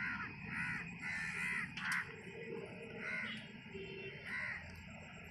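Crows cawing outdoors in a run of short repeated caws, close together for the first couple of seconds and then sparser, with one sharp click about two seconds in.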